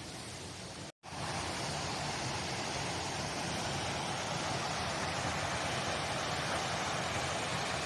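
Steady rushing noise with no distinct strokes or tones. It cuts out for an instant about a second in and comes back slightly louder.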